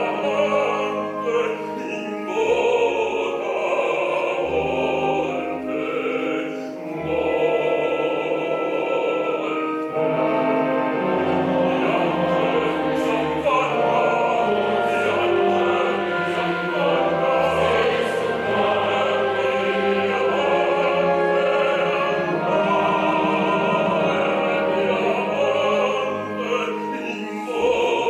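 Operatic bass voice singing a solo line over orchestra, with the mixed chorus singing along.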